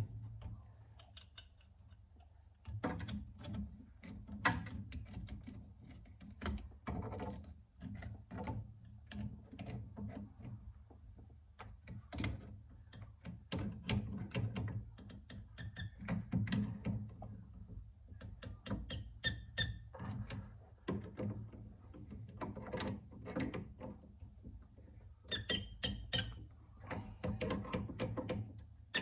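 Irregular clicks, knocks and clatter of hand tools and fittings during pipework on a new boiler, over a steady low hum.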